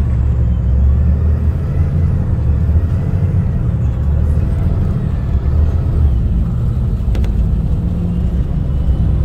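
A moving road vehicle, with its engine and road rumble running low and steady.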